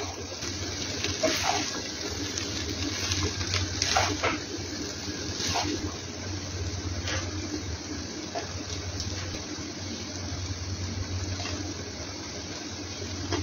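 Fried rice sizzling in a frying pan on a gas stove, a steady hiss, with a metal spoon scraping and knocking against the pan as the rice is stirred, several sharp scrapes mostly in the first half.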